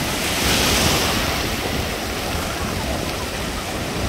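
Sea surf breaking and washing up the beach, with a louder surge about half a second in, over strong wind buffeting the microphone.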